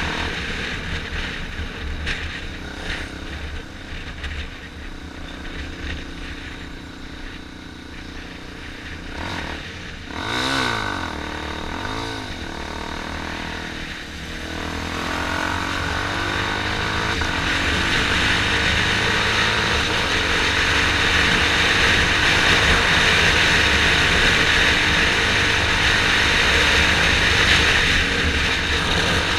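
Motorcycle engine running in slow city traffic, with two quick revs that rise and fall a little after a third of the way in. Past the middle a rushing noise of wind on the helmet microphone builds as the bike picks up speed, and it grows louder to the end.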